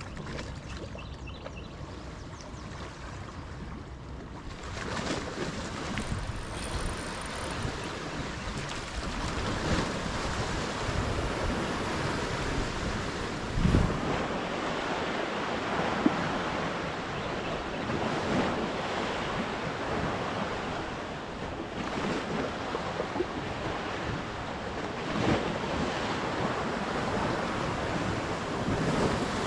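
Wind buffeting the microphone and waves slapping against a bass boat's hull, a steady rushing noise that picks up about five seconds in. A few brief knocks stand out over it.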